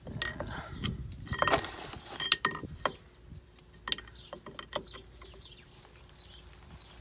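Metal clicks and clinks from working a Pittsburgh 8-ton hydraulic bottle jack: the handle on the release valve lets the ram down, and the extension screw on the ram is turned up. The loudest, sharpest clinks come between one and three seconds in, followed by quieter clicks.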